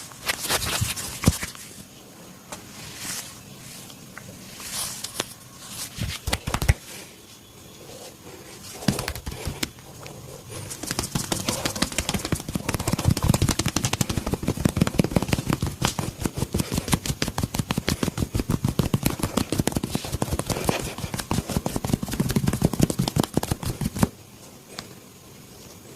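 Hands rubbing and scratching during a massage, with a few sharp cracks. From about ten seconds in comes a long, fast, even run of hand slaps, the rapid percussive tapping of a barber's massage; it stops suddenly near the end.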